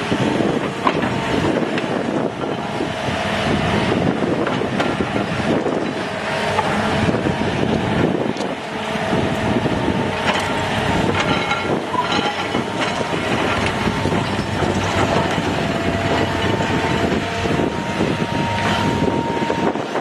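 Excavator's diesel engine and hydraulics running steadily under load, with repeated knocks and clanks and a faint whine that grows louder near the end.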